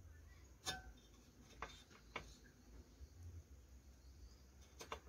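Near silence: room tone with a handful of faint, sharp clicks and taps, the loudest a little under a second in and a quick pair near the end.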